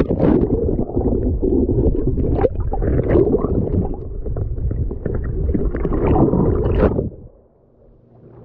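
Muffled sloshing and gurgling of shallow seawater, heard through a camera held under the surface; it drops away sharply about seven seconds in.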